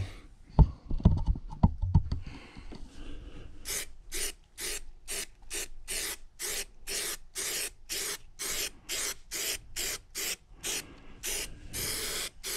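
A few knocks, then an aerosol can of spray adhesive sprayed in a long run of short, even hissing bursts, about two a second.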